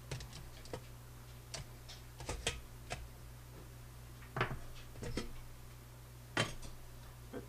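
Dental lab pressure pot's stainless-steel lid being unlatched and lifted off by hand: scattered metal clicks and clanks, the loudest about four and a half and six and a half seconds in, over a steady low hum.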